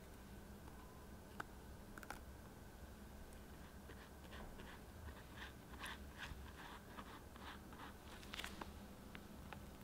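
Heart-shaped biscuits set down on chocolate whipped cream with a couple of light taps, then a pastry brush dabbing milk over the biscuits in a run of quick, soft brushing strokes about halfway through. Faint.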